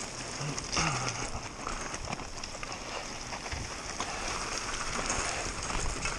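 Mountain bike being ridden downhill at speed, heard from the rider's own camera: wind rushing over the microphone with a continual rattle and knocking of the bike over rough ground.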